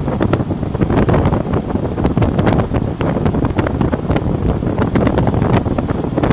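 Wind buffeting the microphone from a moving vehicle, over the vehicle's running noise: a loud, uneven rumble broken by many short knocks.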